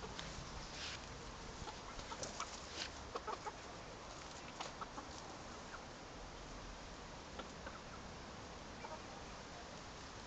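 Young Mianwali Asil chickens clucking softly: a few short, scattered clucks, most of them in the first half, with some light clicks.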